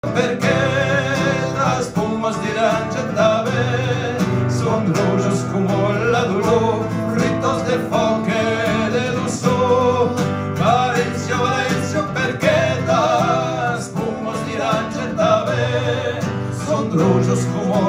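Live acoustic folk music: an acoustic guitar played steadily under a wavering melody line with vibrato.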